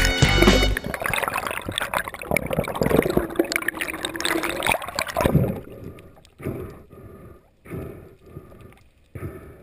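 Background music cuts off about a second in, followed by water splashing and gurgling, loud for a few seconds and then fainter in separate washes.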